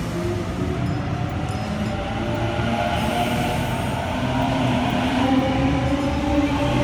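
Sydney Trains Millennium (M set) electric double-deck train at the platform: a steady hum with several machine-like tones that slowly rise in pitch from about two seconds in.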